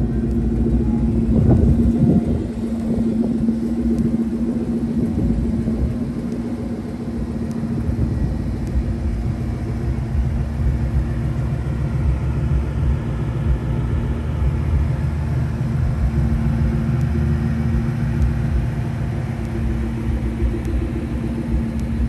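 Supercharged 4.6-litre V8 of a 2003–04 Ford Mustang SVT Cobra idling steadily with the car standing still.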